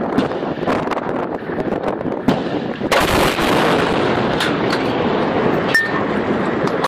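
Gunfire in the open: sharp single shots about a second apart, then about three seconds in a louder crack followed by a heavier, continuous rush of noise with further shots.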